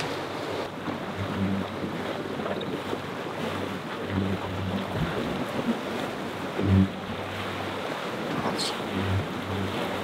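Steady rush of wind and sea water around a sailing catamaran under way, with wind buffeting the microphone in low gusts and one brief louder thump about two-thirds of the way through.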